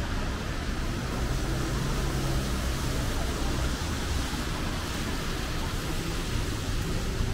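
Wet city street ambience: a steady wash of rain and tyre noise with the low hum of vehicles on the road.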